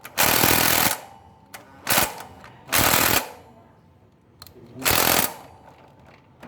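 Makita cordless impact driver hammering in four short bursts with pauses between, the first nearly a second long and the rest briefer.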